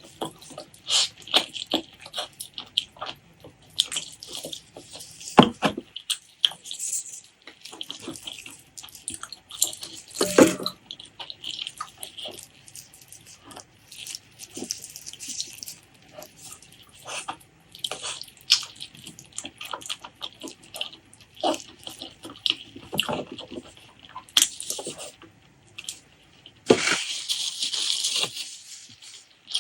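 Close-miked wet eating sounds: chewing, lip smacks and small mouth clicks from someone eating pork leg curry with rice, coming irregularly, with one longer slurp near the end.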